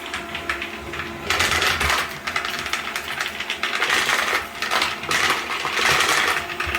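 Deenkee DK650 robot vacuum running with a steady motor hum, and dense clattering of hard dry debris rattling through its brushes and into its bin. The clattering gets much louder about a second in.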